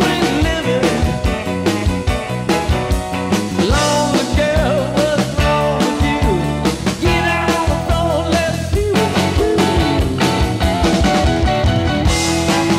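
Rock music soundtrack with a steady beat and a bending lead line, a voice or guitar.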